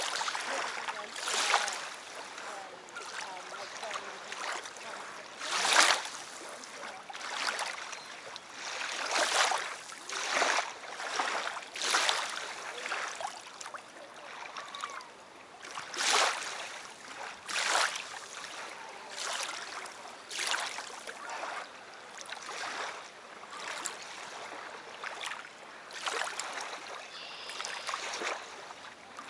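Small lake waves lapping and washing onto a sandy, pebbly shore, a hissing wash of water every second or few. Heard through an action camera's built-in microphone with its wind noise filter on, so there is little low rumble.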